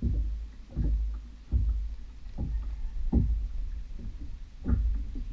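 Kayak paddle strokes in the water: a short swoosh-and-thud about once a second, six in all, with a pause before the last.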